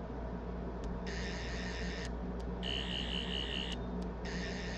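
Sonic screwdriver toy's built-in soundboard playing its electronic warbling sound effect in three bursts of about a second each.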